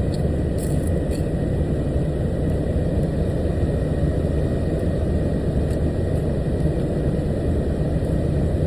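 Idling truck engine running steadily, an even low rumble with a faint steady whine above it, heard from inside the cab.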